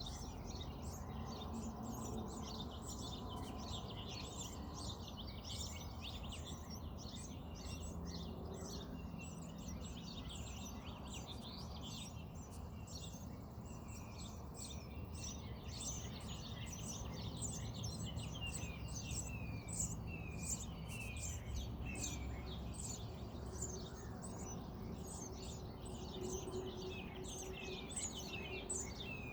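Small birds chirping in quick, dense runs of short high notes, heard over a steady low background rumble.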